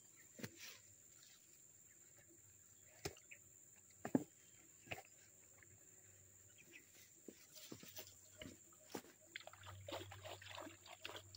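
Quiet outdoor ambience: a steady faint high-pitched whine with scattered soft clicks and knocks, the loudest about four seconds in. A short patch of crackly rustling comes near the end.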